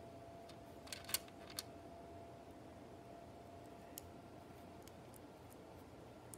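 Plastic Lego bricks clicking as they are handled and pressed together: a quick cluster of sharp clicks about a second in, then a few fainter single clicks, over quiet room tone with a faint steady hum.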